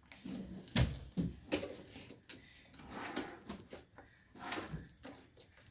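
Homemade slime being squeezed and stretched by hand, giving irregular sticky squelches and small popping clicks.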